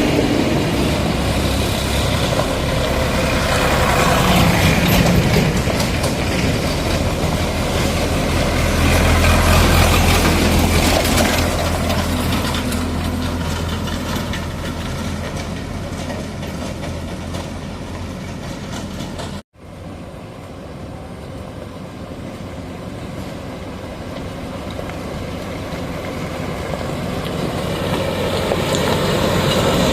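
Diesel engines of a JCB 3DX backhoe loader and tractors running under work, a steady low drone with clatter and rattle. The sound cuts out abruptly about two-thirds of the way in, comes back quieter, and then builds again toward the end.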